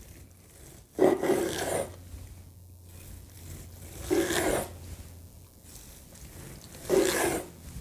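A long brisket carving knife sawing through the crisp, peppery bark and meat of a smoked brisket, three short strokes a few seconds apart.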